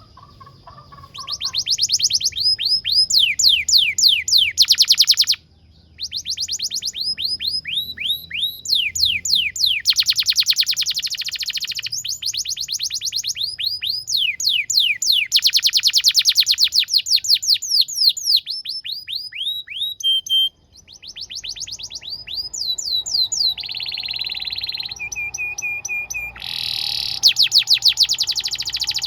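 Domestic canary singing a long song of fast trills and rapidly repeated falling notes. The song breaks off briefly about five and about twenty seconds in, and there are a few held whistled notes near the end.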